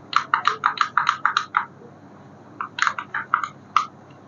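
Rapid light clicks in two bursts of about a dozen each, the second starting about two and a half seconds in.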